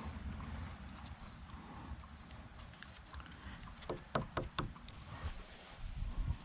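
A quick cluster of four or five knocks with a short ring about four seconds in, over a low rumble and a steady thin high tone.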